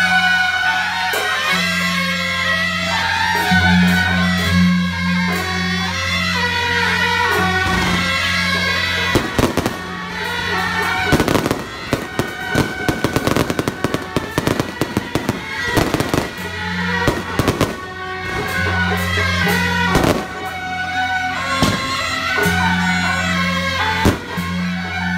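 Aerial fireworks launching and bursting in rapid bangs and crackles, thickest from about nine to eighteen seconds in, over continuous band music.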